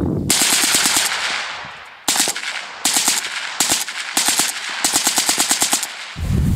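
Full-auto bursts from an AK-pattern rifle fired through an oil-filter suppressor (econo can). There are about six bursts: the first is the longest, at nearly a second, and the rest are short strings of rapid shots.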